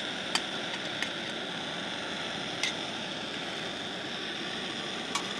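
Wood fire burning in a Dakota fire pit, a steady hiss with a few sharp crackling pops scattered through it.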